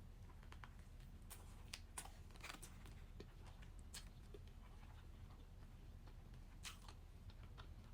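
Near silence with a few faint, scattered mouth clicks: quiet chewing of a sandwich close to the microphone.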